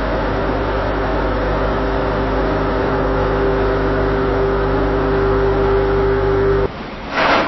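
Busy ironworks factory ambience: a steady machinery drone with a held humming tone, which cuts off abruptly near the end. A brief loud burst of hiss-like noise follows just before the end.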